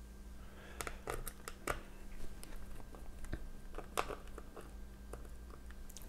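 Faint, scattered small clicks and taps of fingers handling tiny screws inside an opened laptop's chassis while its battery screws are being taken out.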